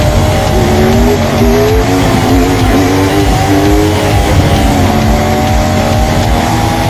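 Inline-four sport bike engine pulling hard, its pitch climbing in a few steps in the first seconds and then holding steadier, with wind rush over the onboard microphone.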